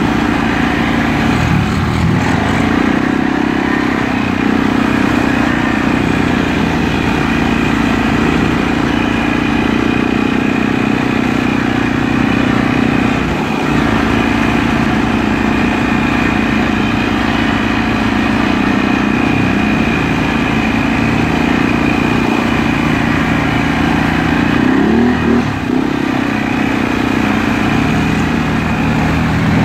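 Arctic Cat ATV engine running at low speed through mud, heard from the rider's seat. The note holds steady with small pitch shifts and rises briefly in a quick rev late on.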